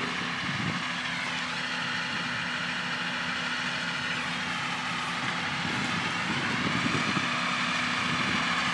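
John Deere 6170M and 6150M tractors running steadily, pulling Lely round balers through the grass, with a slight shift in engine pitch partway through.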